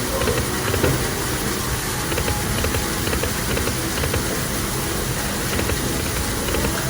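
Indoor casino waterfall rushing steadily, with faint repeated ticking from the slot machine's spinning reels.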